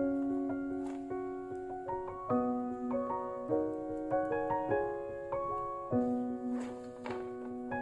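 Background piano music with a slow melody of notes changing about every half second.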